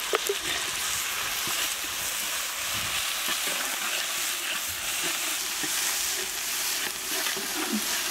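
Ginger-garlic paste frying in hot oil with fried onions, dry red chillies and curry leaves, a steady sizzle, stirred with a metal spatula in a large metal pan, with a few light scrapes and taps near the start.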